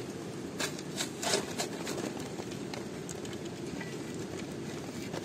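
Smouldering wood and charcoal fire crackling, with a cluster of sharp pops about a second in over a steady low rushing noise.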